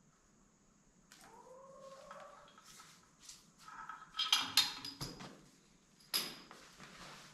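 A faint squeaky glide, then several sharp knocks and clatters of metal parts of a core drill rig being handled on a concrete floor, the loudest about four and a half seconds in.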